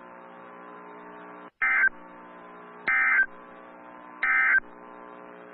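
NOAA Weather Radio SAME end-of-message code: three short bursts of warbling digital data tones, about a second and a bit apart, marking the end of the tornado warning broadcast. Between the bursts, a steady hum from the radio.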